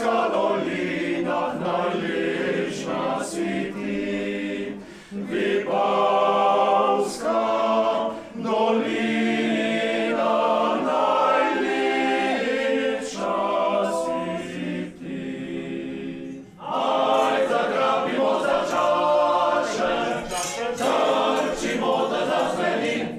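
A group of men singing a cappella in several-part harmony, with long held notes. The singing breaks off briefly about five seconds in and again about sixteen seconds in, then carries on.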